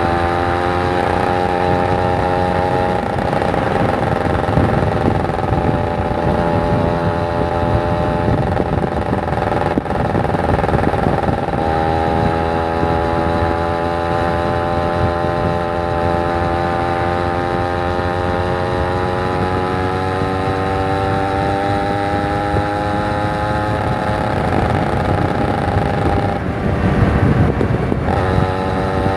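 Kawasaki Ninja 150 RR's two-stroke single-cylinder engine running under way, its pitch rising and falling slowly, with sudden breaks in pitch about 3, 12, 24 and 28 seconds in, over a steady rumble of riding noise.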